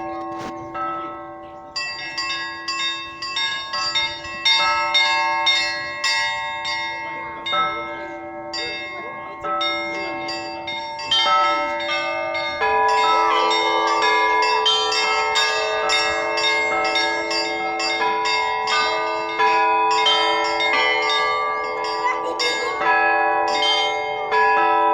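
Russian Orthodox church bells rung in a pattern: quick repeated strikes on small high bells over lower bells that keep ringing. About halfway through, more bells join and the peal grows fuller.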